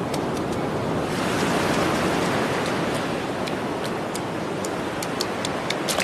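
Surf washing up over a sandy beach: a rush of water that swells about a second in and then slowly eases, with scattered light clicks over it.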